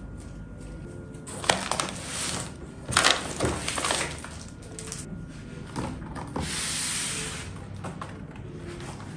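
Stationery being cleared off a wooden desk by hand: a few sharp knocks as items are picked up and set down, rustling of plastic folders and papers, and a swish lasting about a second past the middle.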